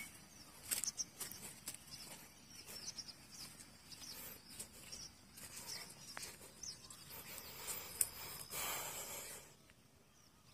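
Faint field ambience: small birds giving short chirps now and then, with scattered light clicks and scuffs and a brief burst of rustling noise a second or so before the end.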